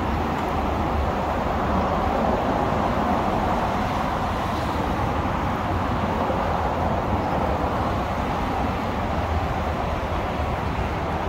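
Continuous rushing noise of passing vehicles, swelling gently through the middle and easing off near the end.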